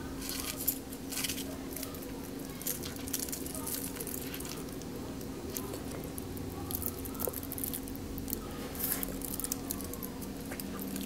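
Crinkling and rustling of a gold foil cupcake liner being peeled away from a cupcake, in short scattered crackles over a steady low hum.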